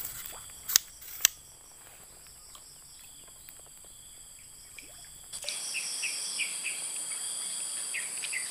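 Steady high-pitched drone of insects, with two sharp clicks about a second in. Just past halfway the drone jumps abruptly louder, and short high chirps repeat over it.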